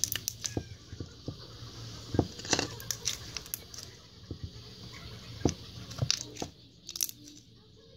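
Glossy slime squeezed and pulled apart in the fingers, giving irregular sticky clicks and pops, with clusters about two to three seconds in and again near the end.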